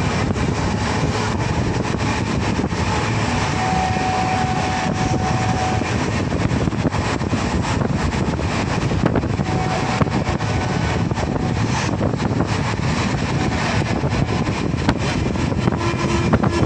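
Steady rumble and rattle of a moving train heard from on board, with scattered sharp clicks from the wheels and track.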